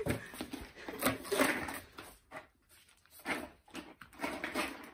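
Pomeranian puppy rummaging in a cardboard tray of thin wooden sticks and balls: rustling and scraping of sticks and cardboard in several short bursts.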